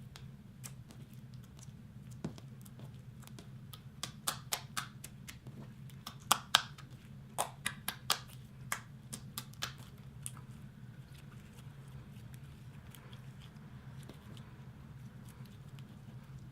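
Clear slime being worked by hand with gold leaf mixed in: a run of sharp clicks and pops from the slime in the middle, over a steady low hum.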